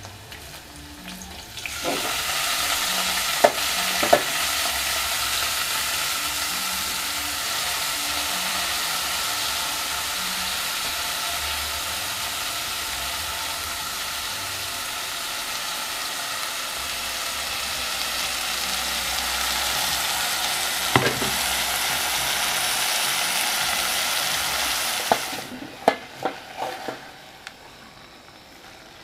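Chopped sukuma wiki (collard greens) sizzling as it fries with onions in a metal pot, a loud steady hiss with a few sharp knocks from the pot and utensils. The hiss starts suddenly a couple of seconds in and drops away abruptly near the end.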